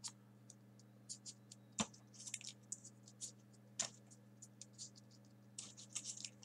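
Faint, scattered paper clicks and rustles as small folded 3D-origami paper units are picked up and pushed into the pockets of a paper model. There are sharper taps about two and four seconds in, over a steady low hum.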